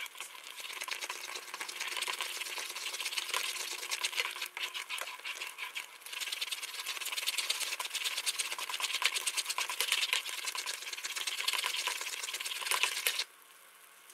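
Fudge mixture of milk, sugar and butter at a rapid boil in a stainless steel pot, a dense fast crackle of popping bubbles as a wooden spoon stirs it; the candy has not yet reached the soft-ball stage. The sound cuts off suddenly near the end.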